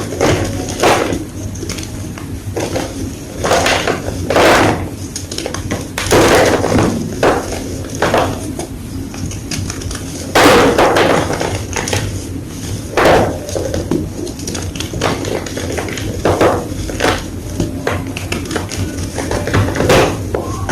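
Blocks of gym chalk being crushed, giving a string of irregular crunches, one every second or two, over a steady low hum.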